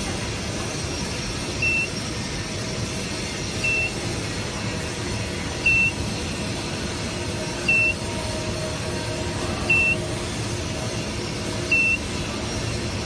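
A short, high electronic beep repeats about every two seconds, six times, over a steady whirr of machinery and fan noise.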